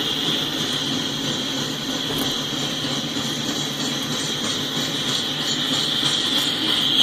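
Coal train rolling past: the steady rumble and rail noise of the train, with a constant high-pitched hiss over it.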